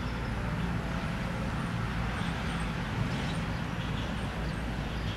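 Steady low rumble and hiss of outdoor background noise, like distant traffic, with faint high chirps.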